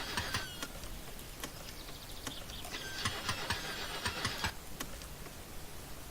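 Car engine cranking on its starter without catching. One cranking attempt ends just after the start, and a second runs from about three to four and a half seconds in; the engine does not fire.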